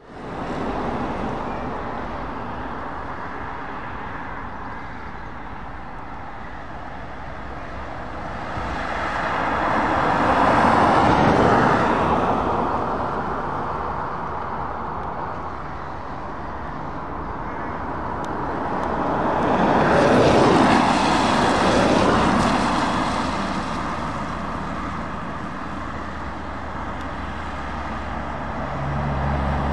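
Road traffic going by on a wet road, tyre noise swelling twice as vehicles pass close. Near the end the low, steady engine note of an approaching heavy truck comes in.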